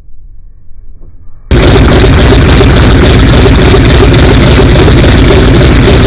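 A faint low rumble, then a sudden cut about a second and a half in to a Mitsubishi A6M Zero fighter's radial engine running on the ground. It is very loud and steady, with a fast pulsing beat, and loud enough to overload the microphone.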